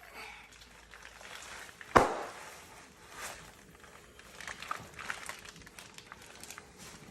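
Bubble wrap under a rolling pumpkin: one sharp pop about two seconds in, then faint crinkling and scattered small clicks.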